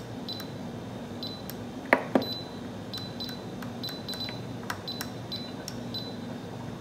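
Instant Pot Ultra's control dial being turned to raise the pressure-cook time. Each step gives a short, high electronic beep with a click, coming two to four times a second, and there are two louder clicks about two seconds in.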